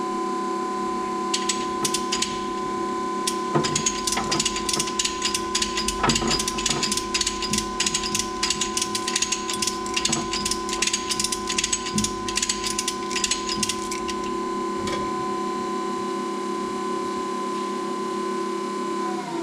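Hand ratchet wrench clicking in quick runs from about a second in until about fourteen seconds, over a steady hum.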